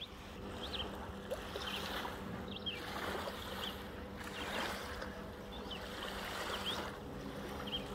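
Small waves washing onto a sandy lakeshore, swelling and falling a few times, over a steady low hum, with short high chirps now and then.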